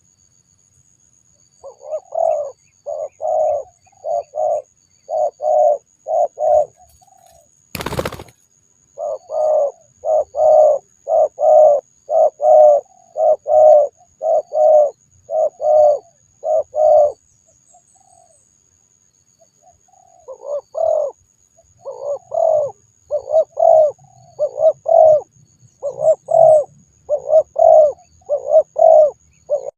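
Spotted dove (tekukur) cooing in long runs of repeated low coo notes, about one and a half a second, pausing briefly twice. A single sharp knock sounds about eight seconds in.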